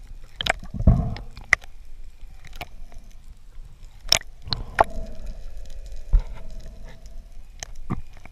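Sea water sloshing and gurgling around a camera held at the surface, with irregular sharp clicks and knocks a dozen or so times.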